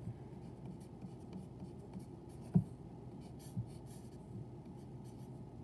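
Pencil writing on a paper worksheet in short strokes, with one sharp tap about halfway through.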